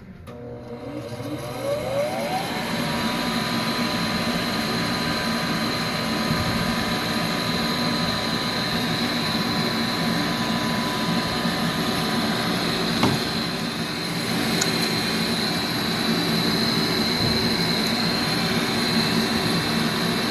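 A condensing gas furnace's exhaust blower (draft inducer) spinning up at start-up, its whine rising over the first couple of seconds, then running steadily with a steady whine and airy rush. A single sharp click about 13 seconds in.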